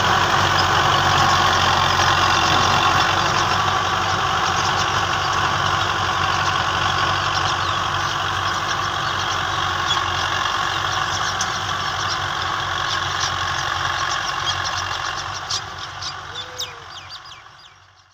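Fiat 640 tractor's diesel engine running steadily under load as it pulls a disc harrow, fading out near the end.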